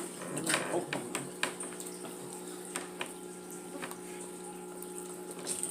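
Eating a seafood boil: scattered clicks and crackles of shell-on seafood being handled and chewed, densest in the first second or so, over a steady low hum.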